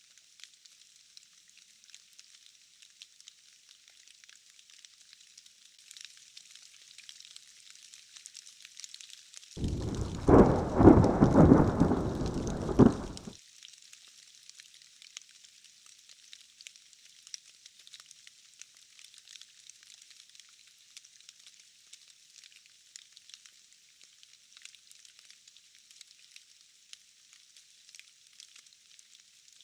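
Steady rain hissing and crackling throughout. About ten seconds in, a loud rumbling thunderclap with several peaks lasts about four seconds and cuts off suddenly.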